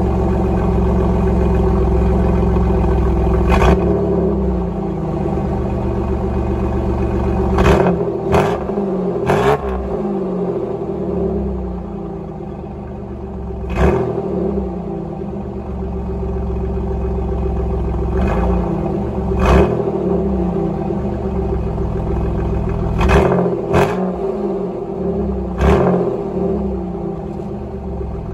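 Exhaust of a 1987 Pontiac Firebird's 2.8 L V6 with a cat delete and aftermarket muffler, idling steadily with several short, sharp throttle blips spread through.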